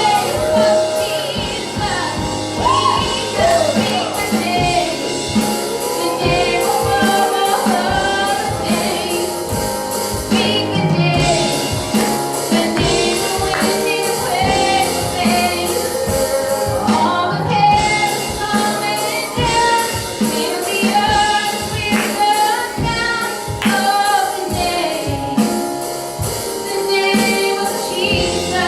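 Live gospel worship music: a female-led vocal with backing singers over a band with a steady drum beat.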